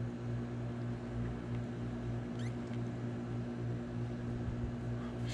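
Steady low hum with even background noise, and a faint brief high squeak about halfway through.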